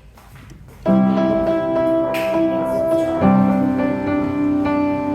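Background music comes in suddenly about a second in: sustained piano or keyboard chords that change at about three seconds. Before it there are a few faint knocks.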